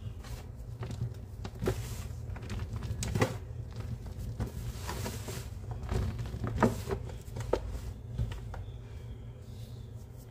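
Hands scooping, squeezing and crumbling a thick layer of damp, clumpy powdered cleaning mix in a sink: irregular soft crunching and rustling, with sharper crunches about three seconds in and again around six to seven seconds in.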